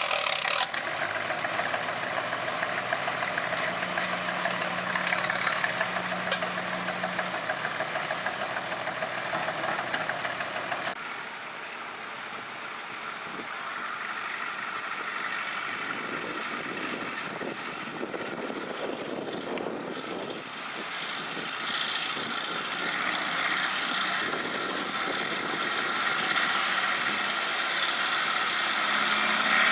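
Farm-stock pulling tractor engines working hard under load while dragging a weight-transfer sled: first a John Deere tractor, then, after a sudden change about eleven seconds in, a second tractor that starts quieter and grows louder toward the end.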